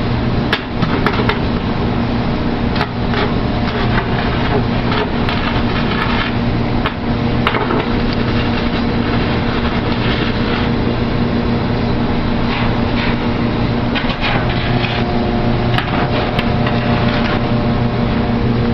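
Electric stick (shielded metal arc) welding: the arc crackles and sputters steadily with many sharp pops, over the steady hum of the arc welding machine.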